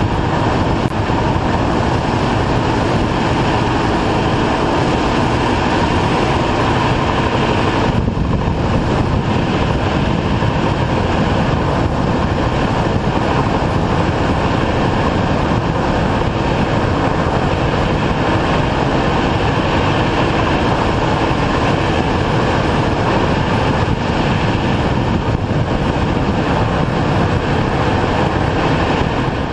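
Loud, steady rumble of road, tyre and drivetrain noise picked up by a camera mounted under a moving 2002 BMW 330xi's chassis near the front axles.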